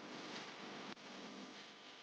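Faint background music, a quiet passage between louder guitar parts, with a brief dropout about a second in.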